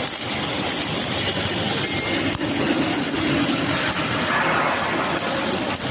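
Welding arc of a travelling fillet welding carriage laying a horizontal fillet weld: a steady, harsh crackling hiss.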